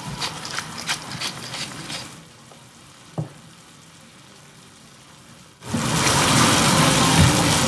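A pepper mill grinding black pepper over the pan, a quick run of crunching clicks for about two seconds. After a quiet gap, beef, tomatoes and onion start sizzling steadily in the frying pan about two seconds before the end, much louder than the grinding.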